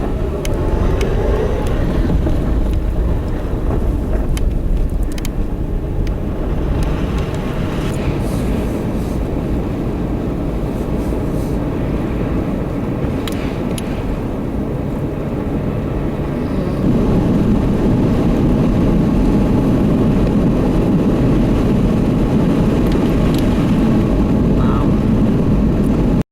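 An engine running steadily, with a low rumble and hiss, that grows louder about 17 seconds in.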